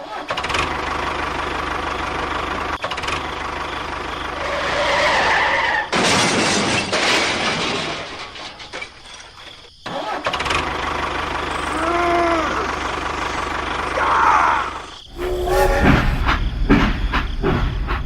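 Vehicle-type engine or motor noise in several abruptly cut segments, with short rising-and-falling squealing tones twice past the middle and a heavier low rumble near the end.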